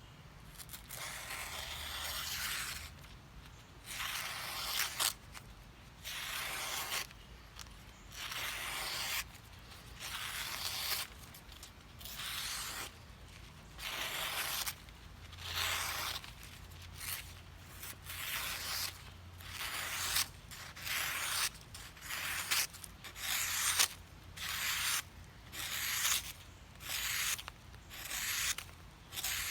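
Swiss Army knife blade drawn in repeated strokes, a scraping, tearing sound with each one. The strokes are longer and slower at first, then quicken to about one a second.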